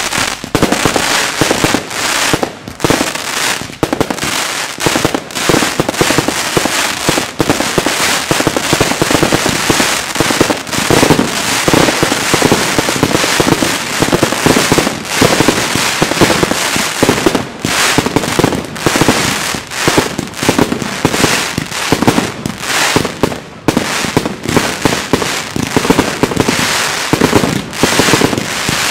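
Fireworks barrage: aerial shells bursting overhead into glittering crackle stars, a dense, unbroken rattle of pops and bangs.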